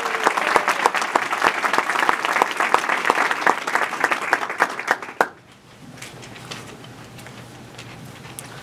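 Audience applauding, a dense patter of hand claps that cuts off suddenly about five seconds in, leaving quiet room noise.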